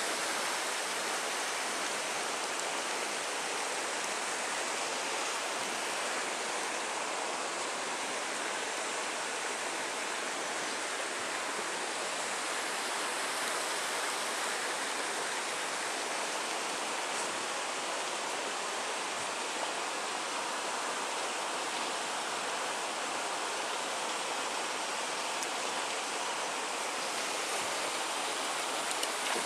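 Steady rushing of flowing water, an even hiss with no break.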